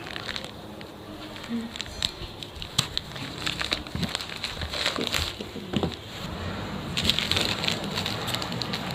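Packaging being handled and opened: crinkling and rustling with scattered clicks and taps, turning into a denser stretch of crinkling about two seconds before the end.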